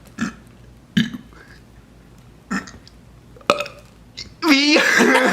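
A man burping: a few short belches about a second apart, then a long, loud burp with a wavering pitch starting near the end.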